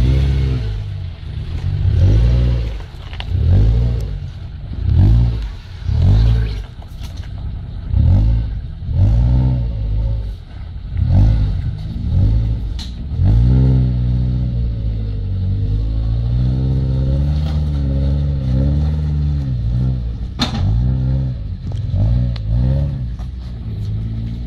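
Compact 4x4's engine revving in short repeated surges, about one a second, as it crawls up a loose rocky slope, then pulling longer with slow rises and falls in pitch. A sharp knock near the end stands out over the engine.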